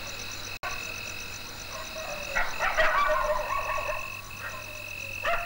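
Night ambience of frogs croaking in chorus over a steady, high insect trill, busiest in the middle. The sound briefly cuts out about half a second in.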